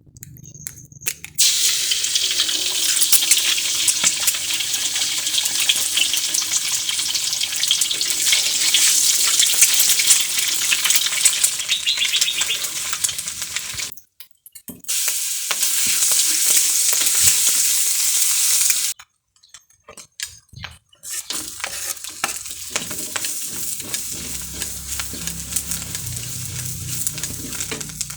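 Food sizzling as it fries in hot oil in a pan, a steady hiss that cuts off abruptly twice, then goes on more quietly near the end.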